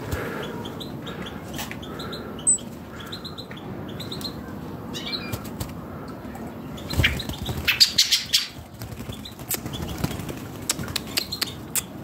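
Blackbird giving short, high chirping calls, with a quick flurry of wing flaps a little past the middle as it takes off.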